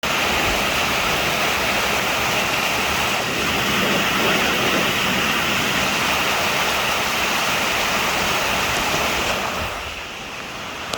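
Strong wind rushing through trees, a loud steady roar of noise that eases off about ten seconds in.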